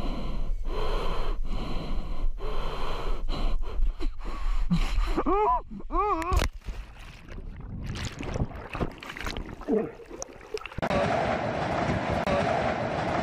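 A person's quick, sharp breaths, two or three a second, then two loud wavering cries about five and six seconds in. Near the end a steady hum of background noise takes over.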